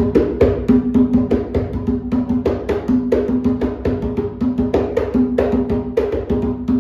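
Small 60 cm atabaque hand drum with a goatskin head, freshly tuned, played with bare hands in a quick, steady rhythm of about four to five strokes a second, each stroke ringing with a clear pitch.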